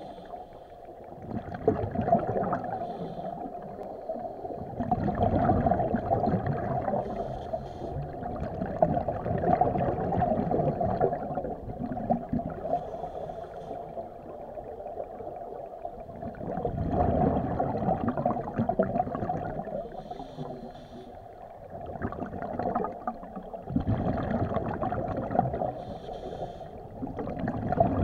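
Scuba diver breathing underwater through a regulator: each exhale sends out a gurgling rush of bubbles lasting a few seconds, about six times, every four to five seconds, with a shorter hiss between them.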